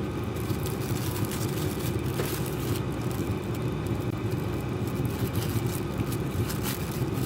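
Steady low rumble of a motor vehicle running, with a few faint clicks over it.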